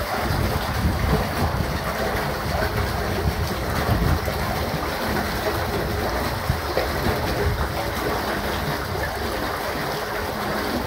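Wastewater rushing and churning in a sewer manhole, flowing again after high-pressure jetting has cleared a blockage in the line, with a steady low hum underneath.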